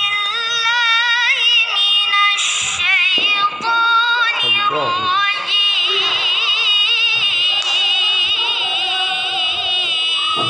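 A boy's high voice reciting the Quran in the melodic tilawah style: long held, ornamented notes with a fast wavering vibrato. About halfway through the pitch falls in a short phrase, then climbs back into a long wavering line.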